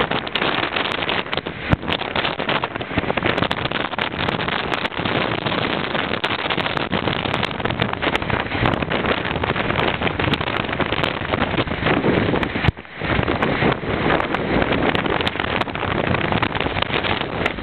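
Strong wind buffeting the microphone with crackling gusts, over the wash of ocean surf breaking on rocks. The wind drops out for a moment about three-quarters of the way through.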